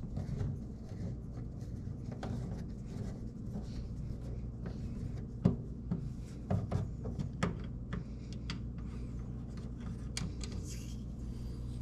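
Hands working on a microwave to get at its light bulb: scattered light clicks, taps and rubbing, with a few sharper knocks about halfway through, over a steady low hum.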